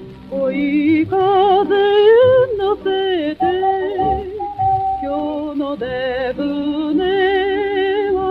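Vintage Japanese popular music played from an old 78 rpm record, its sound cut off above about 4–5 kHz: a melody line with heavy vibrato over band accompaniment.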